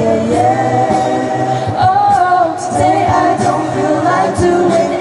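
A mixed group of teenage voices singing a pop song a cappella through handheld microphones, in harmony, over a steady beat of vocal percussion.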